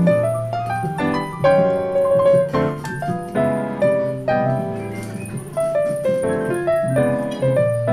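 Background piano music: a melody of separate struck notes over lower held notes.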